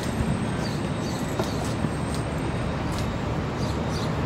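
Steady city street traffic noise, with a scatter of short, sharp clicks over it.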